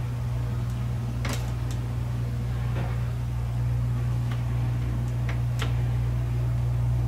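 Steady low hum in the workshop, with a few light, sharp clicks from test probes being handled and touched against the power-supply board's connector pins.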